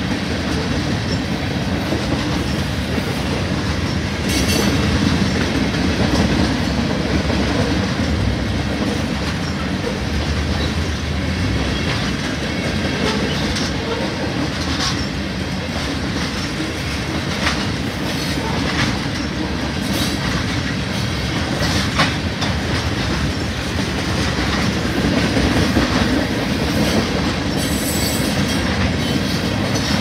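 Freight train cars rolling past: a steady rumble of steel wheels on rail, with scattered sharp clicks as wheels cross rail joints.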